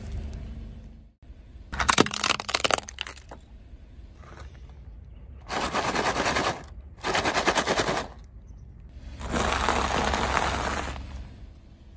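A car tyre rolling over a wrapped packet of Oreo cookies, the biscuits cracking and the wrapper crackling about two seconds in. Then a plastic snack bag crinkles in two short bursts, and near the end the tyre crushes peanut crackers in a longer run of crunching and crackling.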